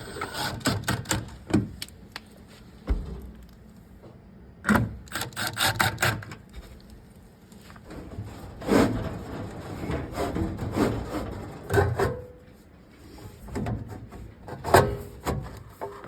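Irregular knocks, clicks and scraping of building materials being handled and fitted, coming in bunches with quieter gaps between.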